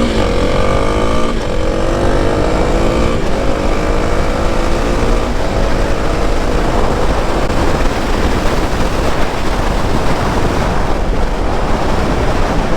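2021 Kawasaki KLX300's single-cylinder four-stroke engine accelerating hard from a standstill, its pitch climbing and then dropping at each upshift, three shifts in the first five seconds, then rising more slowly in a higher gear. Wind rush on the helmet microphone grows with speed and covers the engine in the second half.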